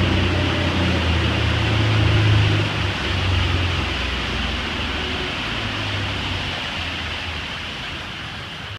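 Twin Suzuki 300 V6 four-stroke outboards running at speed under a steady rush of wind and water. The low engine drone is strongest for the first few seconds and then fades, and the whole sound grows gradually quieter toward the end.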